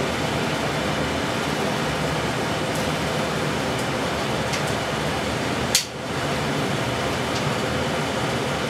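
Steady mechanical drone, with a few light metallic ticks and one sharp click about six seconds in, as a ratchet is worked on the bolts of a V8 engine.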